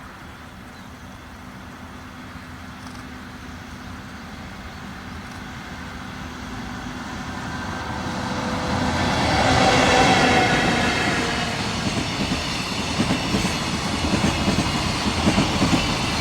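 Freight train hauled by an EF64 electric locomotive approaching and passing, growing louder to a peak about ten seconds in, with its pitch dropping as the locomotive goes by. The wagons follow with a rapid, steady clickety-clack of wheels over the rail joints.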